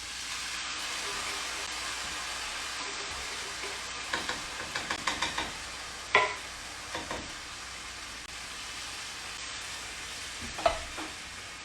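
Canned diced tomatoes sizzling as they hit a hot pan of olive oil, onions and garlic, the sizzle swelling at the start and then running steadily. A run of light clicks about four seconds in and a few sharper knocks of a utensil or can against the pan.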